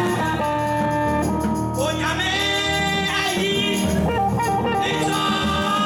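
Music: a singing voice over instrumental accompaniment, with held keyboard-like tones and a steady bass line.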